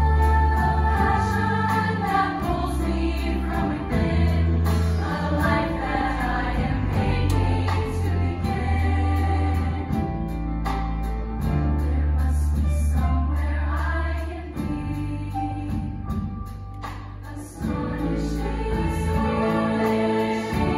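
Women's show choir singing in harmony over an instrumental accompaniment with a heavy, sustained bass line; the bass drops out for a few seconds past the middle, then returns.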